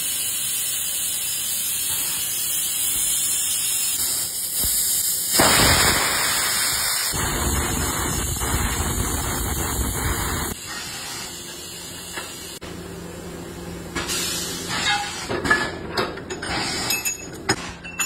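Tyre retreading mould press venting with a loud, steady hiss. The hiss grows heavier and deeper for about five seconds in the middle, then cuts off suddenly. Scattered metal clinks and knocks follow.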